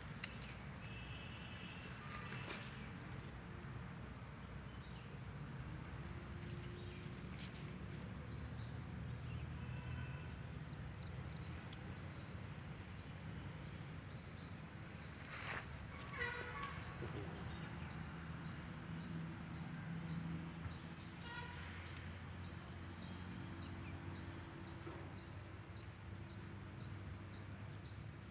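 Insects droning steadily at a high pitch. From about halfway through, a second insect sound ticks about twice a second, and a few brief chirps come in here and there over a low background rumble.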